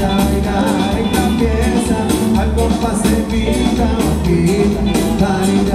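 Cumbia band music at a loud, steady level, with a driving beat of regular bass pulses and drum hits under sustained instrument notes.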